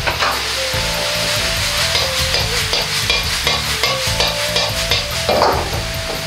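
Liver and garlic-chive stir-fry sizzling in a hot wok, with a metal ladle clacking and scraping against the wok many times as the food is stirred and tossed. A brief louder burst comes a little after five seconds in.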